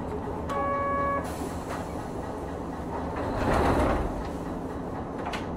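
Hankai Tramway Type 351 tram Mo 354 running, with the steady low rumble of its nose-suspended traction motors and wheels and a few clicks over rail joints. A short steady tone with overtones sounds about half a second in, and a louder rush of noise swells around three and a half seconds in.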